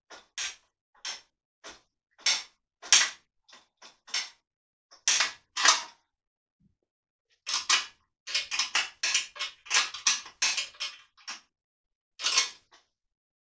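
Irregular short scraping and knocking handling sounds, each lasting well under half a second, with a dense run of them from about eight to eleven seconds in.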